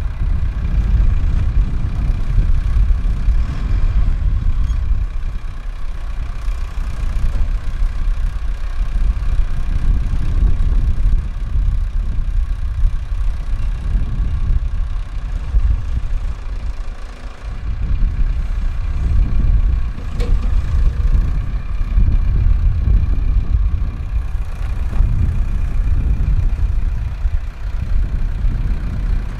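Strong wind buffeting the microphone despite a furry windscreen: a loud, low rumble that swells and dips in gusts.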